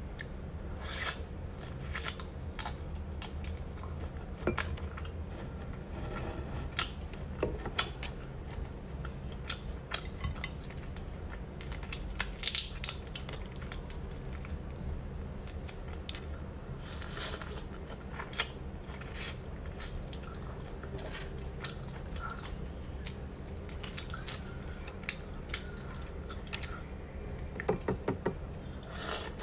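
Whole boiled shrimp being peeled by hand and eaten: the shells crackle and snap in irregular clicks, with chewing between, over a steady low hum.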